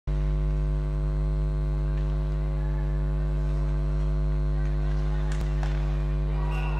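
Loud, steady electrical mains hum in the recording, a low buzz with many evenly spaced overtones, covering faint rink sounds; a single sharp knock about five and a half seconds in.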